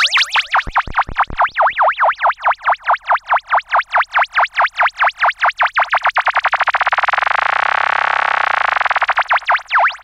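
Kawai S-100F monophonic analog synthesizer playing a single held tone whose pitch is swept up and down by its modulation, a siren-like warble. The warble speeds up steadily until it blurs into a fast buzzing trill about seven seconds in, then slows again near the end.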